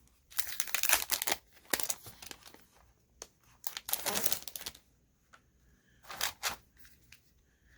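Paper craft supplies and their packaging rustling and crinkling as they are handled and unwrapped, in several short bursts.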